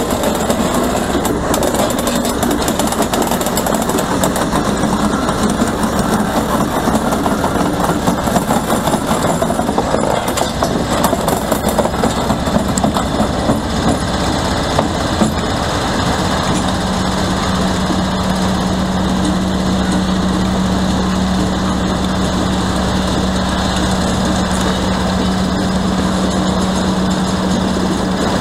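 Diesel-electric locomotives, a Class 56 coupled to a Class 33, standing with their engines idling: a steady engine drone. About halfway through, a steady low hum joins in and holds.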